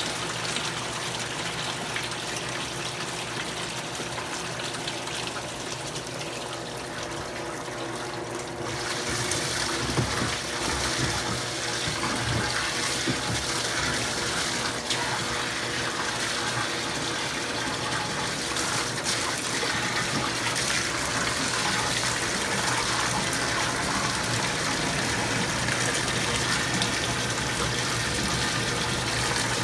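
Electrolux Prosdócimo washing machine in its rinse cycle, with water running into the tub as a steady rushing hiss under a low machine hum. About eight seconds in, the water sound grows louder and brighter.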